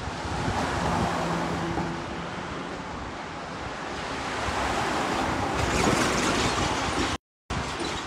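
Wind rushing over the microphone as a steady noise that swells about two-thirds of the way through, broken by a brief dropout in the audio near the end.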